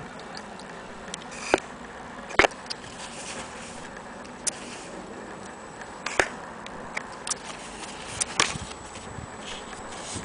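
Handling noise: a handful of irregular sharp clicks and knocks, the loudest about two and a half seconds in, over a faint steady hiss.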